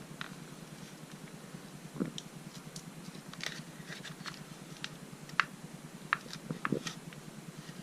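Red-hot knife blade melting and cutting into a plastic Nerf gun, with irregular crackles and sharp ticks from the plastic.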